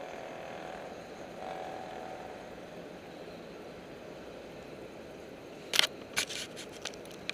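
Steady hum of idling work-truck engines and street noise, with a quick run of sharp clicks and knocks about six seconds in.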